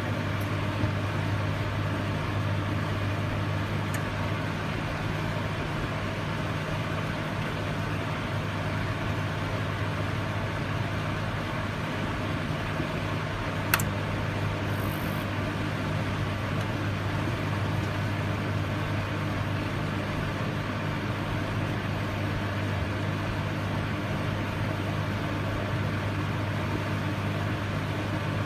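Microwave oven running: a steady low hum over a fan-like whir, with one sharp click about halfway through.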